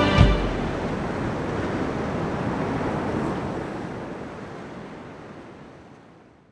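Rough-sea surf and wind, a steady rushing noise with a low boom just after the start, fading out gradually to silence.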